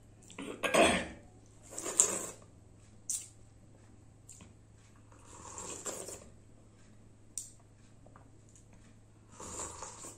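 Eating at a stainless-steel plate and bowl: a few sharp metallic clinks of the dishes, spread out, among softer eating noises.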